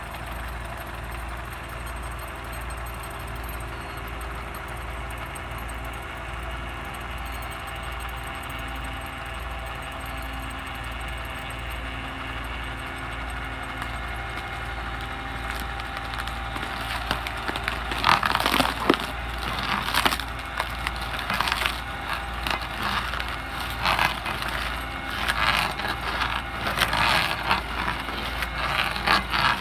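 Fendt 826 tractor running steadily, driving a vertical rotor stump grinder. A little past halfway the 27-inch blades start biting into the stump, adding loud, irregular cracking and splintering of wood over the engine drone.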